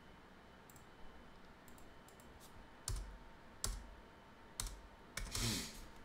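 Computer keyboard keys clicking in sparse, irregular keystrokes as code is typed, with a brief hiss near the end.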